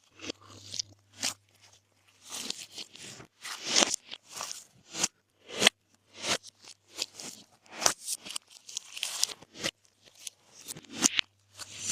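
Glossy slime being squeezed, folded and stretched by hand, giving irregular sticky pops and crackles at uneven spacing.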